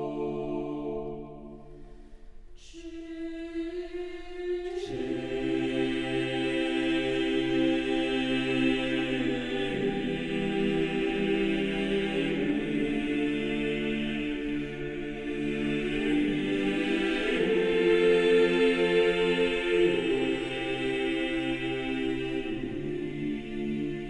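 Choir singing slow, sustained chords. A thinner, quieter passage gives way to the full chord about five seconds in, and the harmony shifts every few seconds after that.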